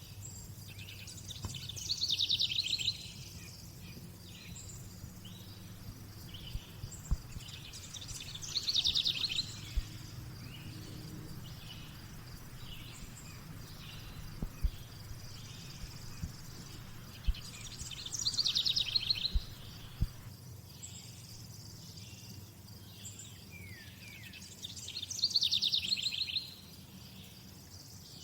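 Birds singing: one bird repeats a short, fast trilled song four times, several seconds apart. Between its songs come softer short chirps about once a second, over a steady high insect hiss, with a few sharp clicks.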